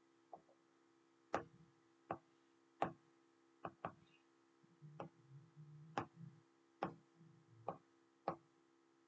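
Faint, sharp taps on a tablet screen, about ten at irregular intervals.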